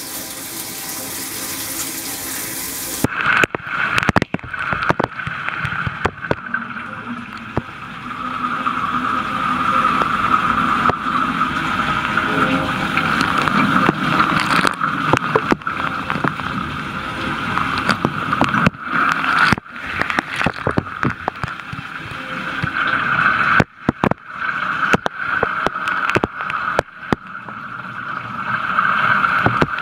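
KitchenAid dishwasher running a wash cycle: water spraying and splashing from the lower spray arm, over the hum of the wash pump, while the upper spray arm gets no water. The sound is hissier for the first few seconds and briefly drops out a few times.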